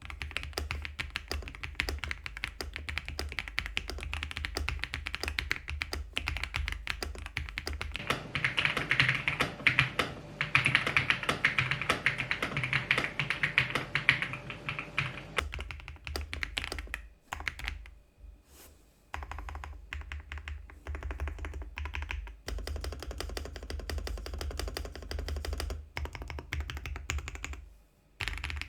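Ajazz AK820 Max mechanical keyboard with Avocado switches and an FR4 plate being typed on, a steady stream of keystroke clacks. The typing gets louder and denser for a stretch in the middle, then stops briefly twice, once past the middle and once just before the end.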